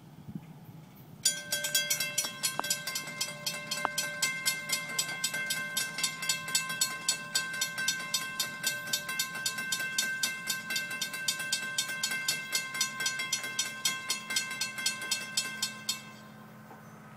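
Railroad crossing warning bell ringing in rapid, even strokes, warning of an approaching train as the gate arms come down. It starts suddenly about a second in and cuts off near the end.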